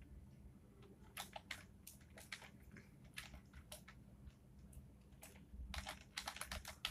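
Faint keystrokes on a computer keyboard, typed in short runs with pauses between and quickest near the end.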